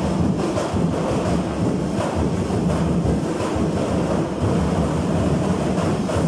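Festival percussion ensemble of many drums playing a dense, rumbling beat for a tribal street dance.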